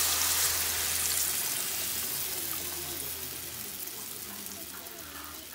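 Blended beans being poured into a frying pan of hot oil, sizzling and hissing. The sizzle is loudest at the start and dies down gradually as the pan fills.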